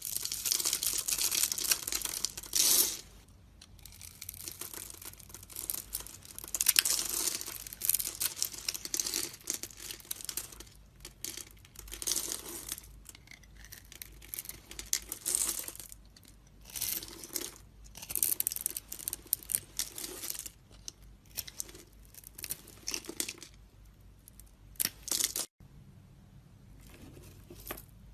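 A blade cutting and scraping through a bar of soap: crisp, hissy strokes that come in irregular runs of one to several seconds, with short pauses between them.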